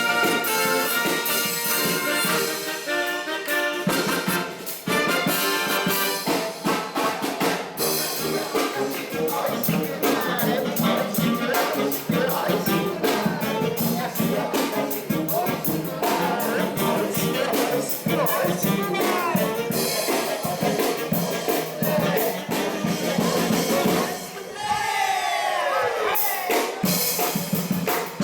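Live brass band playing a lively parade tune, brass and trumpets over drums. Near the end comes a brief passage of sliding, sweeping pitches before the full band resumes.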